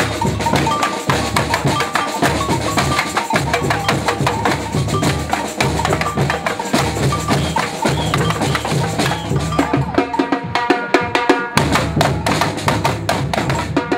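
Street percussion band playing a fast, steady drum rhythm: deep drums under sharp stick hits on small hand-held frame drums. The pattern changes about ten seconds in.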